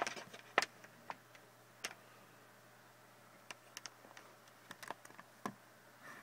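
Faint, irregular light clicks and taps from hands handling a Novation Launchpad Mini controller and its USB cables, about a dozen in all, with the sharpest near the start and about half a second in.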